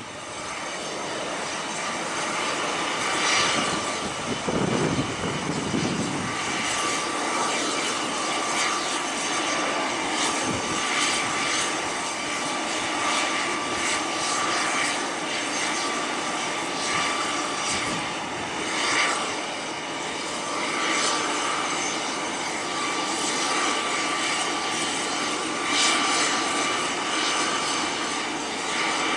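Aircraft engines on approach to a runway: a steady drone with a continuous high whine, and a brief swell of low rumble about five seconds in.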